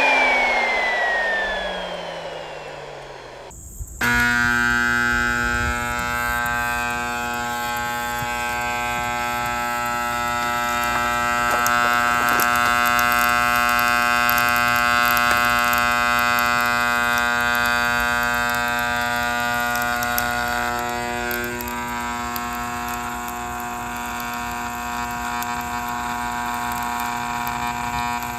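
Bissell Powerforce Helix vacuum cleaner motor winding down with a falling whine. About four seconds in, a steady electrical buzz starts abruptly and holds.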